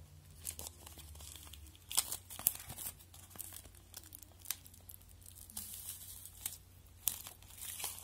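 Cellophane shrink wrap being peeled off a CD case by hand, crinkling and crackling in irregular bursts, with the sharpest crackles about two seconds in.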